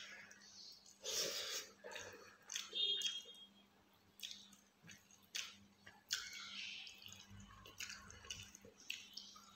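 Wet eating sounds of a rice and fish curry meal eaten by hand: chewing and mouth smacks, with squishy sounds of fingers mixing rice into curry. The sounds come in irregular short bursts.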